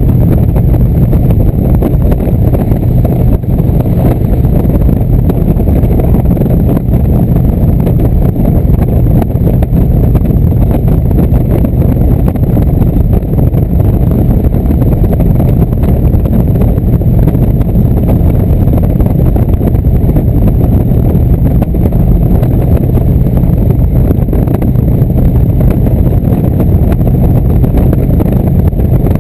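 Indian cruiser motorcycle's V-twin engine running steadily at highway cruising speed, mixed with heavy wind rumble on the microphone.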